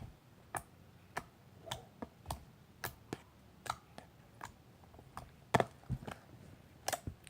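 Homemade slime being squeezed and worked in the hands, giving a run of small sharp clicks, about two a second.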